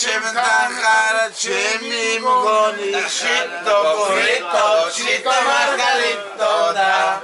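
Men singing together unaccompanied, a melodic song in long held notes.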